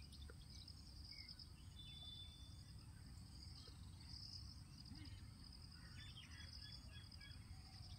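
Near silence, with faint crickets trilling steadily in the background.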